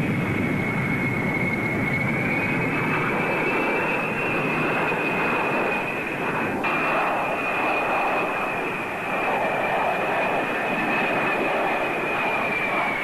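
Aircraft engine running steadily: a loud, even rushing noise with a high whine that drifts slightly in pitch. A brief click comes about six and a half seconds in.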